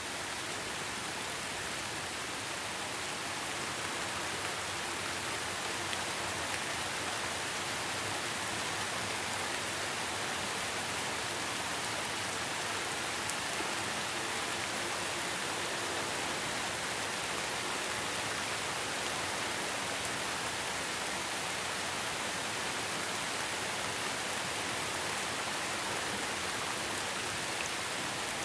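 Heavy rain falling steadily: a dense, even hiss of drops with no breaks and no thunder.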